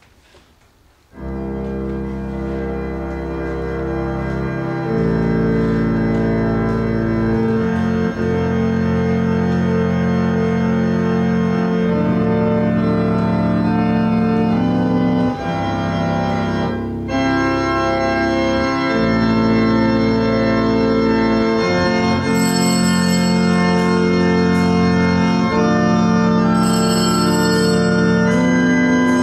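Church organ starting about a second in and playing slow, sustained chords over a deep pedal bass. Near the end, short bursts of bright high ringing join in.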